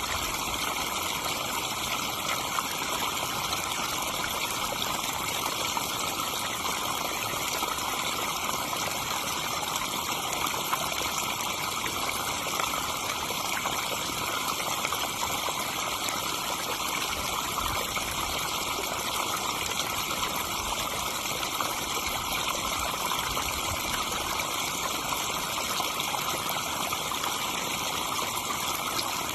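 Water splashing steadily down a garden pond's waterfall into the pond, an unbroken rushing and trickling.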